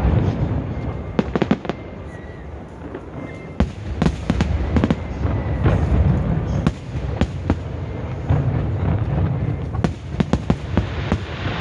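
Aerial fireworks display: a deep, continuous booming of shell bursts, with volleys of sharp cracking bangs in quick clusters several times.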